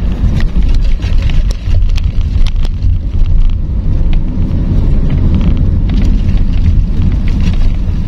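Sedan driving on a narrow road, heard from inside the cabin: a steady, heavy low rumble of tyres and engine, with many small clicks and knocks scattered through it.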